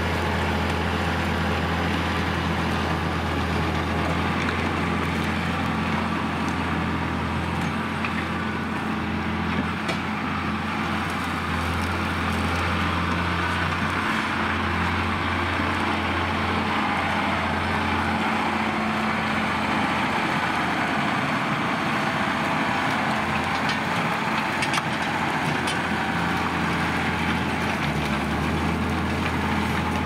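John Deere 6150R tractor's six-cylinder diesel engine running steadily under load while pulling a five-furrow reversible plough, a constant low hum whose note shifts a little through the middle.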